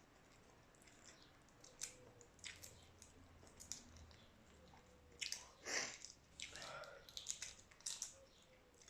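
Faint, wet chewing and mouth smacks of a person eating boiled shrimp and rice, with a few louder smacks in the second half.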